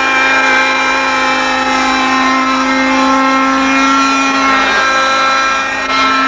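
Small engine of a radio-controlled model Écureuil helicopter running at a high, steady pitch in flight, with slight wavers in pitch and a short dip in level near the end.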